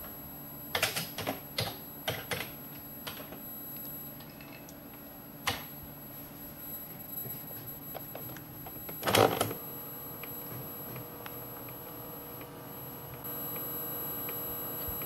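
Keystrokes on a Commodore 64 keyboard as a SAVE command is typed, then the record and play keys of a Noris DR 1535 datasette pressed down with a clunk about nine seconds in. After that the cassette recorder's motor runs with a steady hum while it saves the program to tape.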